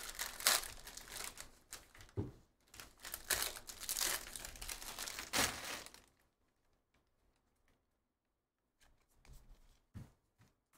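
Foil wrapper of a Bowman Draft Super Jumbo trading-card pack torn open and crinkled by hand for about six seconds, then quiet apart from a few faint taps near the end.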